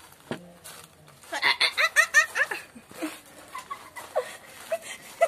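High-pitched laughter: a quick run of short 'ha' bursts about a second in, tailing off into softer giggles.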